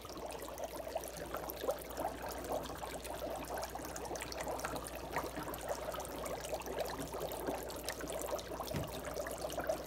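Dry ice bubbling in water as the carbon dioxide boils off: a steady fizz of many small pops.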